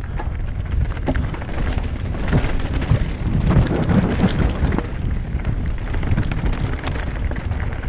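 Mountain bike riding down a rough, rocky dirt trail: tyres rumbling and crunching over stones, with a steady stream of knocks and rattles from the bike, and wind buffeting the helmet-mounted microphone.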